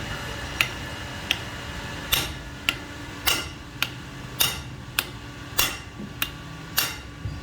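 Hammer striking metal: about a dozen sharp blows at a steady pace of a little under two a second, heavier and lighter strokes alternating.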